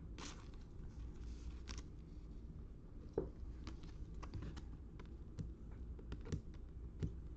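Trading cards being flipped through one by one, giving soft, irregular clicks and ticks over a low steady hum.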